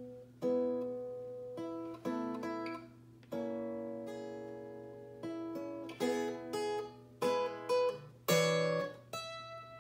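Ovation-style acoustic guitar played solo: a slow series of about a dozen plucked jazz chords. Several are cut off short by muting, and the last one is left to ring near the end.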